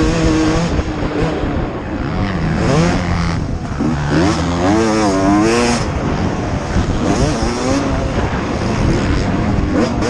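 Motocross dirt bike engines racing at full throttle, their pitch rising and falling again and again as the throttle is worked and gears change, with a quick run of up-and-down revs about four to six seconds in.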